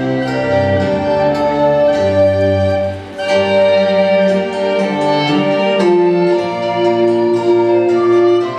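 Music for a pavane, a Renaissance dance, played by bowed strings: a slow melody in long held notes over lower parts, with a brief break about three seconds in.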